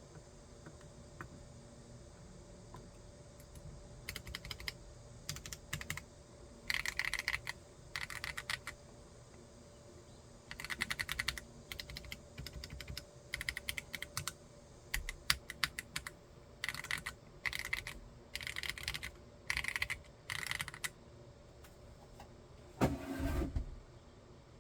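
Typing on a 40% mechanical keyboard with an acrylic case and MMD Holy Panda tactile switches: short runs of fast keystrokes separated by brief pauses, beginning a few seconds in. Near the end there is a lower, duller clatter.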